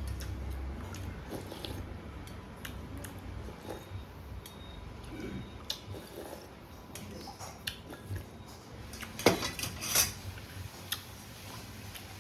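Eating utensils clinking and scraping against a bowl of noodles, in scattered light taps with two louder clinks about nine and ten seconds in.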